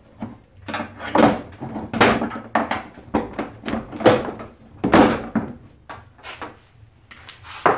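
Plastic headlight assembly of a 2007 Chrysler Pacifica being wiggled and pulled loose from the front end: a series of irregular knocks and rattles of hard plastic.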